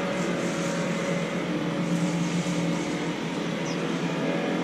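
Steady mechanical hum with a low, even drone.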